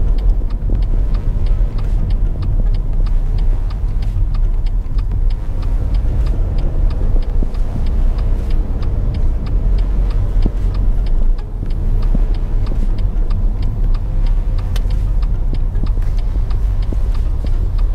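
Car's turn-signal indicator ticking in a steady rhythm inside the cabin, over the low rumble of the car driving along the road.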